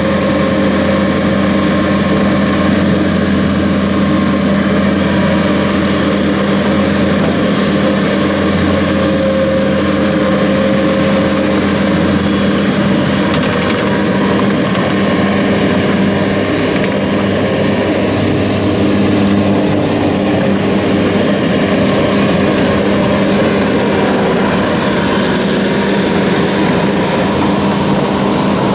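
Diesel engine of a 2015 Bobcat T650 skid steer running steadily at a constant speed.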